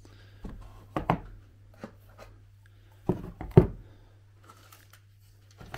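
Food tins set down one after another on a hardened cardboard-and-papier-mâché shelf, making several knocks, the loudest about three and a half seconds in. A faint steady hum runs underneath.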